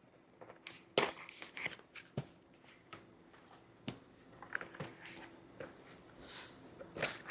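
A box and its packaging being opened and handled by hand: scattered clicks and taps with light rustling.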